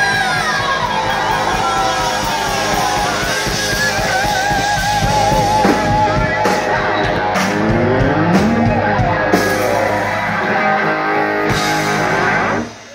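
Rock music led by a distorted electric guitar, with long sustained notes that bend in pitch and waver with vibrato. The music cuts off sharply near the end.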